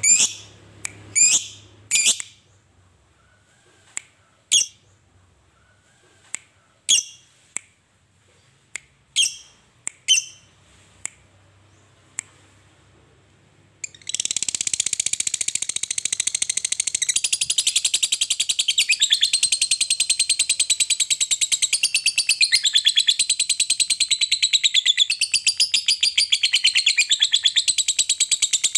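Lovebird, a Fischer's lovebird by its look, giving a dozen or so sharp, separate chirps. About halfway through it breaks into a long, fast, unbroken chattering trill: the 'ngekek panjang' (long ngekek) that lovebird keepers prize.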